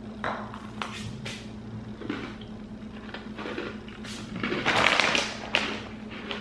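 Crunching of thin, crispy chocolate biscuits being bitten and chewed, with a few sharp cracks in the first second or so. About four and a half seconds in comes a loud crinkling of a plastic snack bag being picked up.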